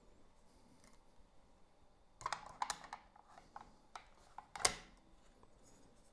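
Faint clicks and light knocks of camera equipment being handled: a cluster a little after two seconds in, and one sharper click at about four and a half seconds.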